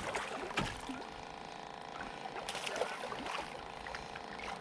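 Water splashing and knocking beside the boat as a hooked channel catfish is fought close in, several short bursts over a steady hum.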